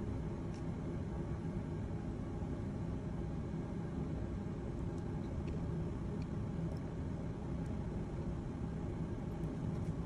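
Steady low hum of lab ventilation, with a few faint light ticks.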